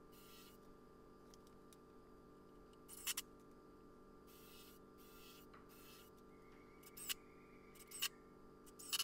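A few sharp clicks and light knocks from 2x4 lumber and a cordless drill being handled while a wooden frame is assembled: a quick double click about three seconds in, then three more near the end, about a second apart. A faint steady hum runs underneath.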